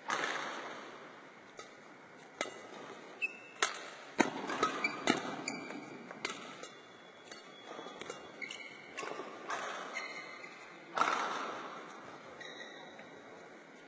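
Badminton racket strings striking a shuttlecock in sharp cracks at irregular intervals, mixed with brief squeaks of court shoes on the floor, ringing in a large hall.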